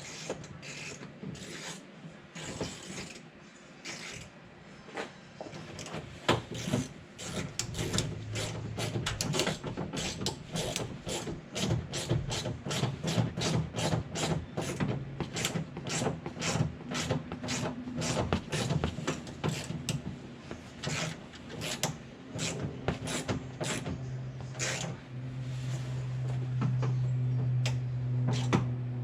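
Ratcheting hand tool clicking in a long run of even strokes, about two clicks a second, as screws are driven in to fasten a door handle. A low steady hum grows louder near the end.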